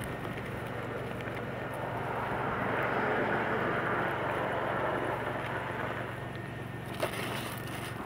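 Blizzard wind gusting, a steady rush that swells about three seconds in and eases off again, with a low steady hum underneath.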